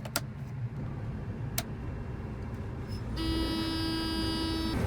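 Combine engine running with a steady low rumble. Two sharp clicks come in the first couple of seconds, then a steady pitched tone sounds for about a second and a half near the end.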